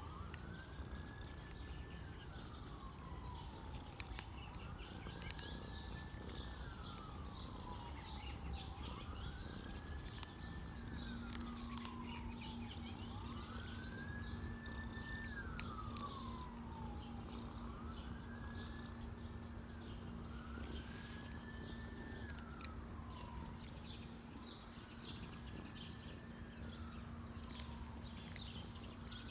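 An emergency-vehicle siren wailing, rising and falling about every four seconds, over the low purring of a ginger domestic cat being petted. A steady low hum joins about a third of the way in.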